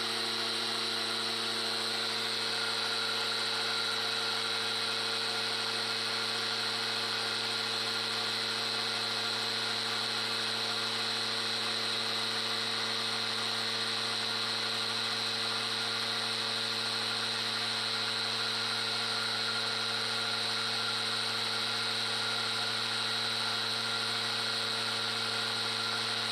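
Small electric grain grinder running steadily, grinding grain fed from a pot on top, with an even motor hum and a high whine.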